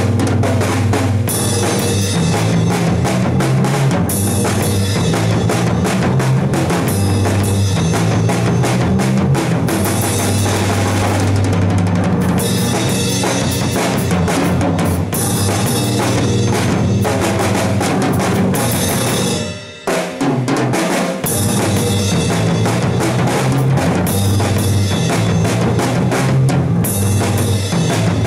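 A rock band playing, drum kit pounding out a steady beat over a driving bass line, with a brief break about twenty seconds in before the band comes back in.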